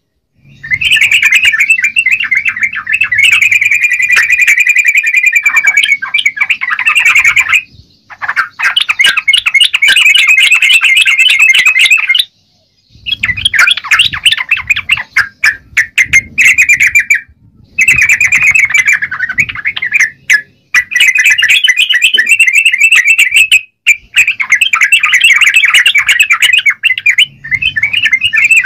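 Yellow-vented bulbul (trucukan) singing continuously in long runs of rapid, dense notes, several seconds each, broken by a few short pauses.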